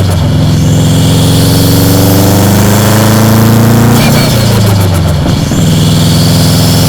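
Subaru Impreza WRX's EJ207 turbocharged 2.0-litre flat-four running under load, its pitch climbing slowly. About four seconds in the revs drop briefly and then settle again at a steady note.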